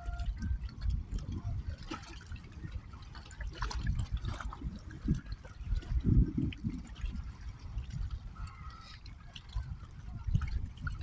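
Lake water lapping and splashing, over an uneven low rumble.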